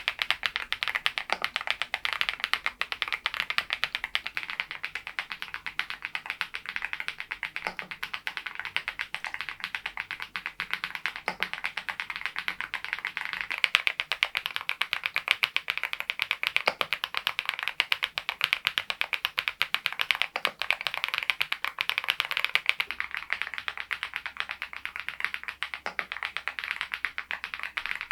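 Continuous fast typing on a Mongdol87 mechanical keyboard fitted with thick PBT cherry-profile keycaps: a dense, even stream of keystroke clicks.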